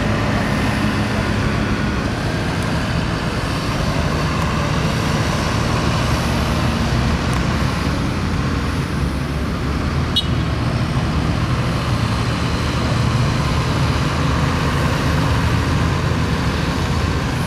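Vintage tractor engine running steadily with a low, even note.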